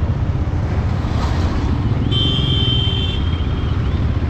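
Motorcycle engine running with a steady low rumble and wind noise on the microphone while riding. A brief high tone sounds about two seconds in and lasts about a second.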